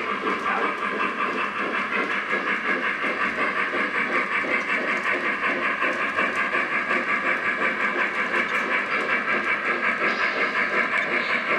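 Model steam locomotive sound from a Lionel Legacy PRR B6sb 0-6-0 switcher: an even, steady rhythm of hissing steam chuffs as the locomotive runs.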